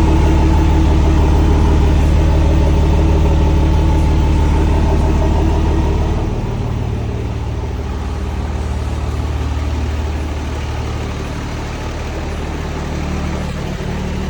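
5.9 Cummins diesel engine idling steadily, dropping slightly in level and pitch about six seconds in.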